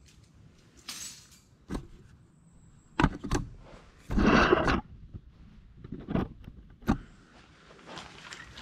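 Handling noise: scattered knocks and clicks and one brief rustle about four seconds in, as the camera is positioned by hand and tools are shifted on a concrete floor.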